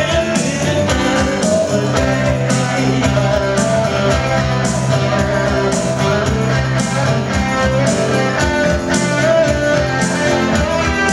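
Live rock-and-roll band playing: electric guitar, bass guitar and keyboards over a steady beat.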